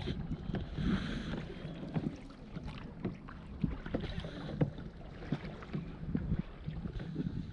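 Kayak on calm river water: small irregular slaps and taps of water against the hull, over a low wind rumble on the microphone.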